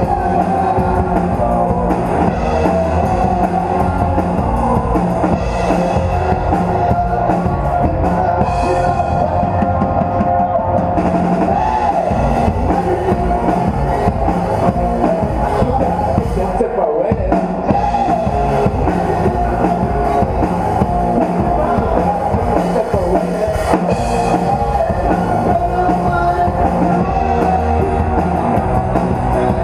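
Live rock band playing: a drum kit keeping a steady beat under electric guitars amplified through Marshall stacks, with bass.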